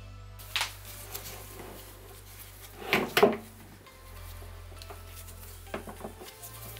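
Handling noise from a rubber glove being stretched and pulled over a plastic pipe coupler in a plastic box wall: scattered rustles and light knocks, the loudest a short cluster of knocks about three seconds in.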